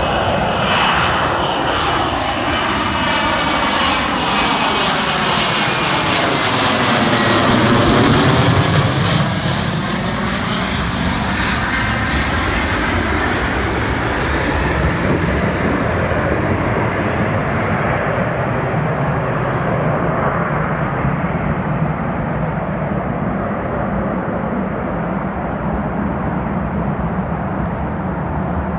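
A Lockheed Martin F-35B Lightning II's F135 turbofan jet engine passing close by during a touch-and-go, loudest about eight seconds in. Afterwards the hiss fades and a steady low rumble remains as the jet pulls away.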